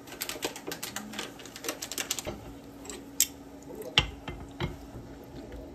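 Rapid light clicking and tapping of small hard objects for about two seconds, then a single sharp click and a heavy knock about four seconds in, over a faint steady hum.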